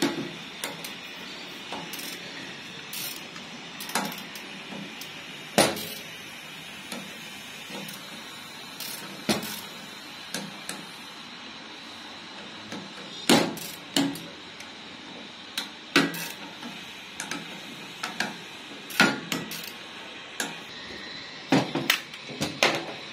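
Irregular metallic clinks and knocks of a ratchet wrench and spanner working the flange bolts of a Tokico 2-inch flow meter's housing. A quick cluster of clinks near the end comes as loose bolts are handled over a metal bowl.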